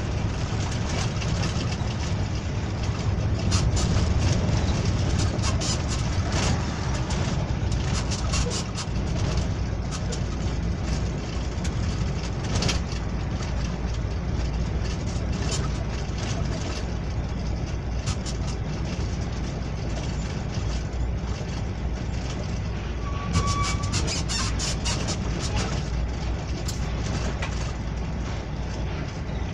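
Truck cab interior while driving: the engine's steady low drone and road noise, with frequent rattles and clicks from the cab and a brief beep about 23 seconds in.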